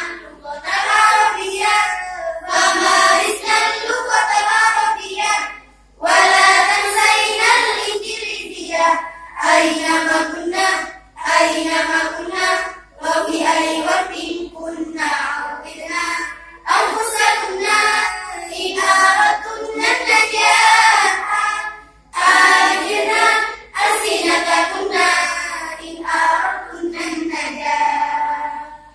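Girls' voices singing a song without instruments, in long phrases separated by short pauses.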